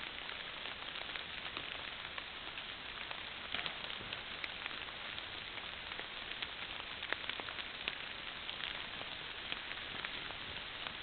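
Steady hiss from a Minox DTC-550 trail camera's microphone, with scattered faint crackles and clicks.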